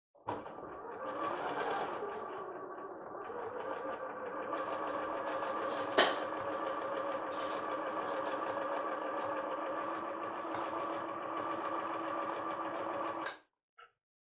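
Electronic domestic sewing machine stitching a seam, its motor speeding up at the start, then running steadily before stopping about a second before the end. A single sharp click about halfway through.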